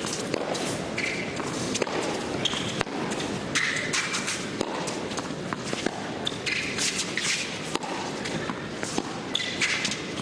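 Tennis play on an indoor hard court: a ball is struck by rackets and bounces with repeated sharp knocks, and shoes squeak briefly several times over a steady crowd hum in a large hall.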